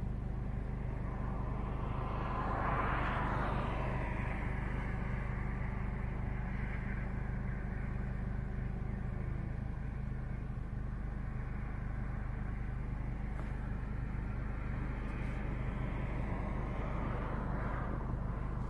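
Steady low rumble of road traffic outdoors, with one vehicle passing about three seconds in and another near the end.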